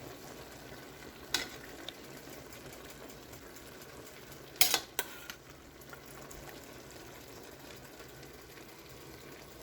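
Faint steady sizzle of a hot pan of string bean and pork adobo. A utensil clinks against the dish about a second in, and again a few times around the middle.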